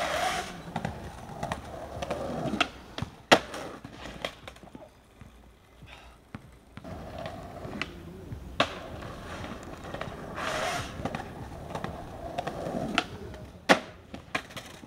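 Skateboard wheels rolling on concrete, broken by sharp clacks of the board. The loudest clack comes a little over three seconds in, with others near nine and near fourteen seconds.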